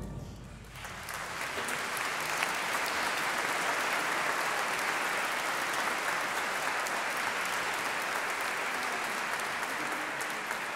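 The last chord of a wind band dies away, then audience applause starts about a second in and holds steady.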